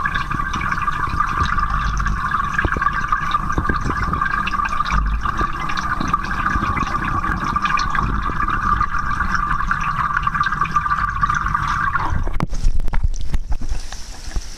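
Steady hiss of moving water picked up by a submerged camera, with a low rumble beneath, which cuts off suddenly about twelve seconds in. Irregular knocks and splashing follow near the end.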